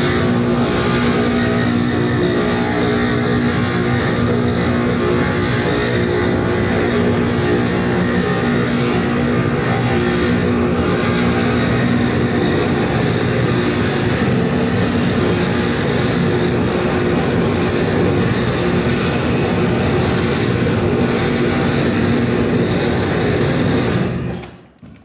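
Loud, dense live noise-music performance: a distorted wall of sound with steady droning low tones, cutting off abruptly near the end.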